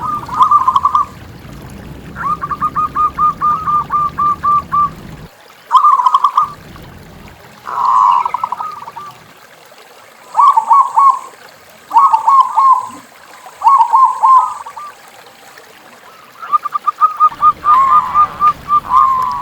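Zebra doves (perkutut) cooing in phrases of rapid staccato notes: a long trilling run early on, then short bursts of notes every second or two, with a second bird overlapping near the end.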